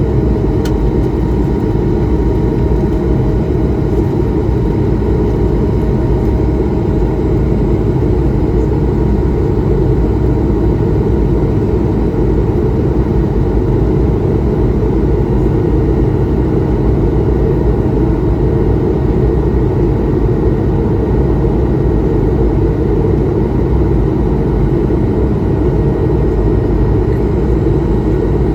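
Steady drone of an Airbus A220-300's Pratt & Whitney PW1500G geared turbofan engines and rushing air, heard inside the cabin, with a faint steady whine above the low rumble.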